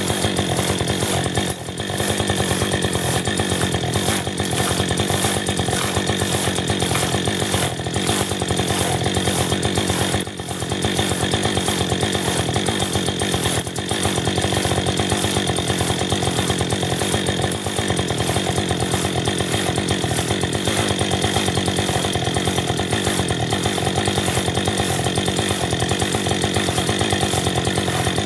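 Old-style crosscut saw rasping through a log in steady back-and-forth strokes.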